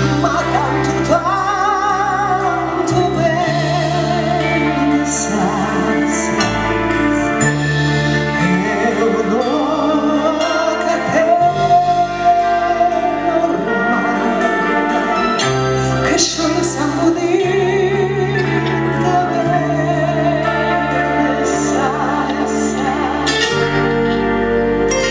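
A woman singing live with a band, holding long notes with wide vibrato over a steady band backing that includes bass.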